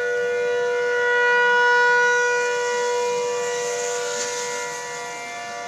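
Outdoor civil-defense tornado warning siren sounding a steady tone that swells about two seconds in and then eases, signalling a tornado warning.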